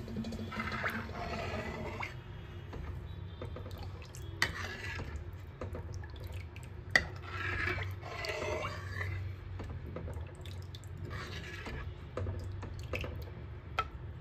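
A ladle stirring thin kadhi batter in a kadhai: liquid sloshing in strokes every couple of seconds, with light clinks of the ladle against the pan, over a steady low hum.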